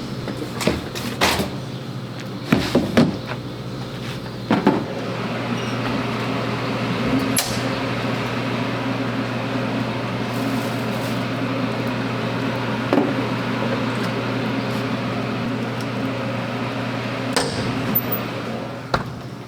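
A few sharp clicks and knocks, then a steady machine-like hum with a hiss over it that starts about four and a half seconds in and runs for some fourteen seconds before stopping near the end.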